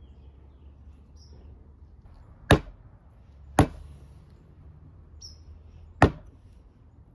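Three sharp knocks of a mallet striking a wood chisel, spaced about a second and two and a half seconds apart, chopping out a mortise in wood. Faint short bird chirps sound between the blows.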